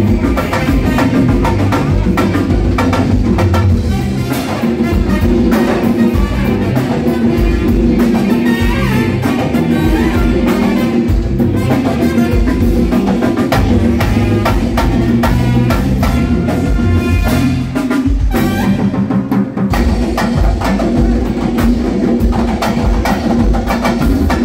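Live band at a soundcheck playing loudly through the stage sound system: drum kit and percussion drums over bass guitar and keyboard. The bass and drums drop out briefly about three-quarters of the way through, then come back in.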